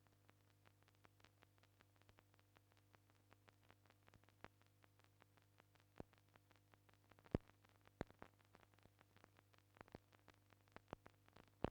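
Near silence: a faint steady low hum with scattered faint clicks and crackle, and a few louder pops about seven and eight seconds in and near the end.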